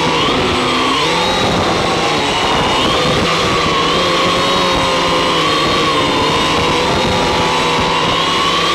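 Octocopter's electric motors and propellers running with a steady whine of several pitches that drift up and down together as the motor speeds change.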